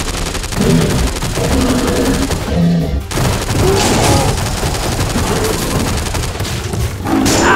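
Machine-gun sound effect: rapid, continuous automatic fire.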